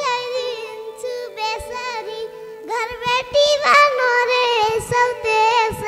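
A young boy singing solo into a microphone, his high voice gliding and holding notes in a Nepali deusi-bhailo folk melody over a steady held note.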